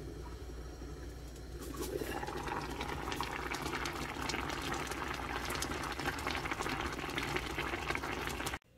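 Spicy stew boiling in an earthenware pot on a gas stove: a steady bubbling simmer that grows louder, with dense popping and crackling, from about two seconds in. It cuts off suddenly near the end.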